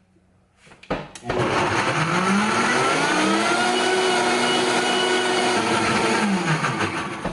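Countertop blender switching on with a click about a second in, its motor whine rising quickly to a steady high speed as it blends fruit and juice, then winding down and stopping near the end.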